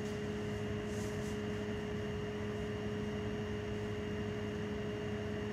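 Steady room tone: an even hiss under a constant hum held at two pitches, one about an octave above the other. A faint rustle about a second in.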